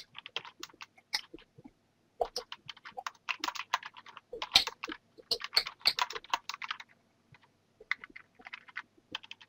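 Typing on a computer keyboard: a rapid run of key clicks, pausing briefly twice.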